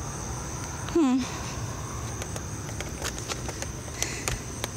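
Night insects chirring steadily at a high pitch over a low background rumble, with scattered light clicks. A short falling hum from a person's voice comes about a second in.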